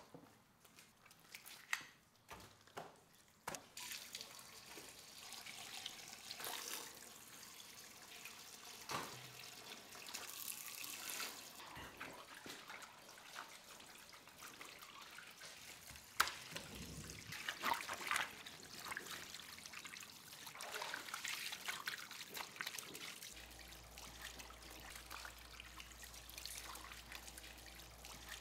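Water running and splashing, with drips, after a few sharp clicks and knocks in the first few seconds.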